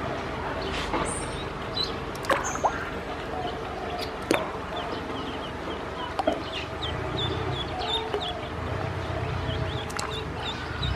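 Ducklings peeping: many short, high calls in quick succession over a steady noisy wash, with a few sharp clicks scattered through.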